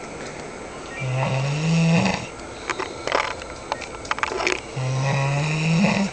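A man snoring loudly in his sleep: two long, droning snores about three and a half seconds apart, each rising a little in pitch towards its end, with scattered clicks between them.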